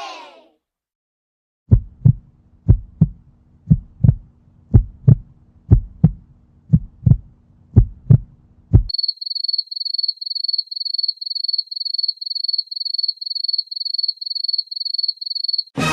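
Heartbeat sound effect: low double thumps (lub-dub) about once a second for about seven seconds. These are followed by a high electronic beep pulsing about three times a second.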